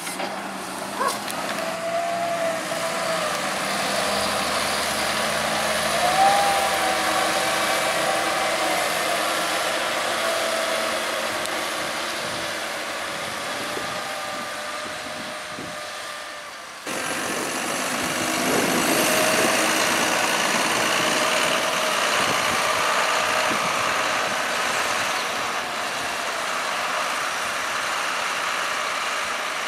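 Heavy diesel machinery working on a maize silage clamp: first a JCB 418S wheel loader's engine revving up and down as it pushes silage with its buckrake, then, after an abrupt change about halfway through, John Deere tractors running as they drive over and roll the clamp.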